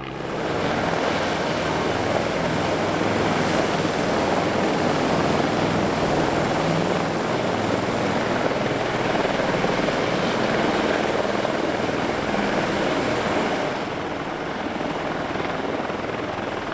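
Helicopter flying past: a loud steady rotor and engine noise with a thin high whine that fades out about 14 seconds in.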